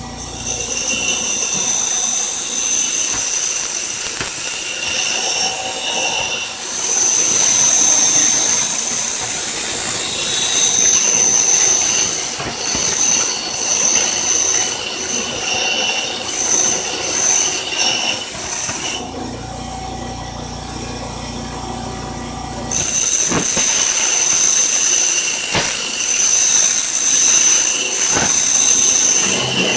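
Bench grinder wheel grinding a piece of metal held against it: a loud, harsh screech with shifting whining tones. About two-thirds through the metal comes off the wheel for a few seconds, leaving the grinder motor's hum, then the grinding resumes.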